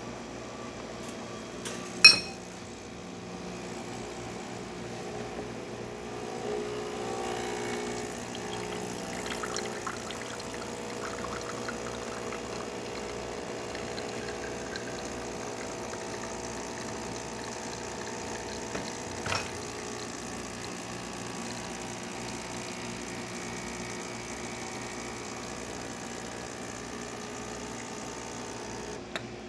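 Breville Oracle espresso machine's vibratory pump humming steadily while a double espresso shot pours into the cup. A sharp click about two seconds in is the loudest moment, with a smaller click later on.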